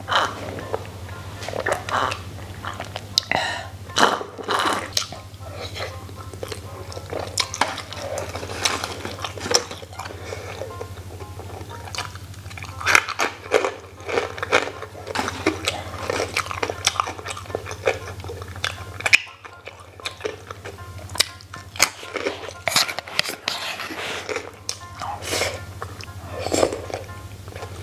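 Close-miked eating sounds: irregular chewing, slurping and sipping, over background music.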